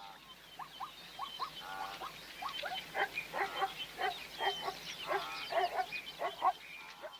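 Rapid chirping animal calls, building up over the first few seconds and fading down near the end.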